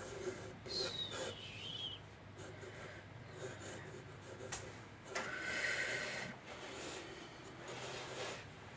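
Pencil scratching across sketchbook paper in a run of irregular strokes, some short and some about a second long, as rough lines are sketched.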